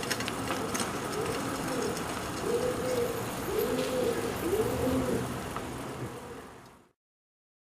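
A pigeon cooing: a run of about five rising-and-falling coos over steady background noise. The sound cuts off abruptly near the end.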